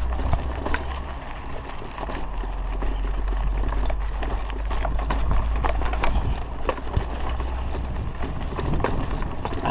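Mountain bike rattling over a rough dirt road, with scattered clicks and knocks from the bike and tyres on loose ground. A steady low rumble of wind buffets the chest-mounted action camera's microphone.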